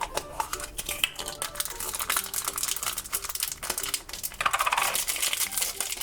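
Coins clattering into a coin-operated toy vending machine, a dense run of metallic clicks and rattles that grows louder about four and a half seconds in.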